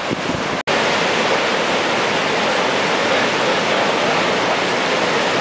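Heavy surf breaking on a sandy beach: a steady, loud rush of wave noise. The sound cuts out for an instant just under a second in, then the rush carries on unchanged.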